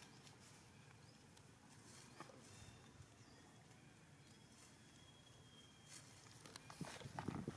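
Quiet outdoor ambience, then from about 6 s crackly rustling of dry leaf litter as macaques move and scrabble in it, louder near the end.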